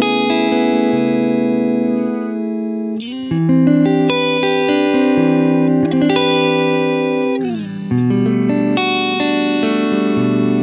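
Washburn N24 electric guitar on a DiMarzio DP156 Humbucker From Hell neck pickup wired in series, played clean and dry through a Fractal AX8 Shiva preset. It plays sustained, ringing chords that change about three seconds in and again near eight seconds.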